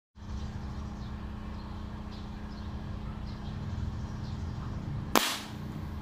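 One sharp crack about five seconds in: a Taurus dual-propellant airgun shot, with its pellet striking the cardboard target. Under it a steady low hum with a few faint bird chirps.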